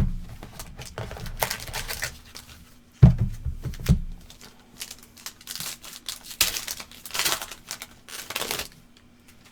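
Crinkling and tearing of trading card pack wrappers being opened, in several rustling spells, with a few low knocks about three seconds in.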